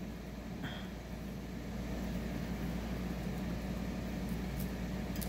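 Steady low background hum with a faint hiss, and a few faint light clicks near the end from a fine metal ball chain being handled.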